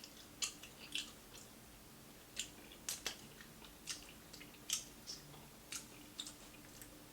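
Chewing crispy fried food close to the microphone: a string of short, irregular crunches and wet mouth clicks.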